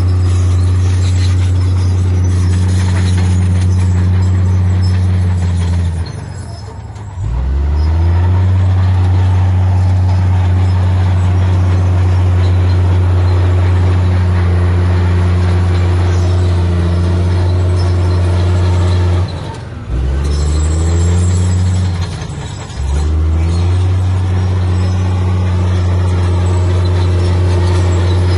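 Heavy diesel engine of earthmoving equipment running hard at steady high revs. Three times it briefly drops in pitch and loudness and then revs back up: once about six seconds in, and twice close together around twenty seconds.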